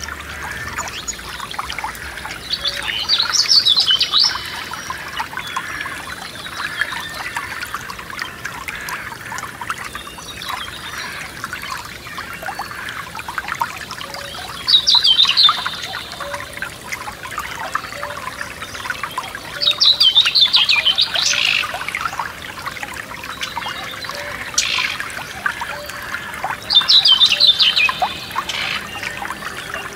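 Forest stream trickling and splashing steadily, with a songbird singing four short, rapid trilled phrases several seconds apart, louder than the water.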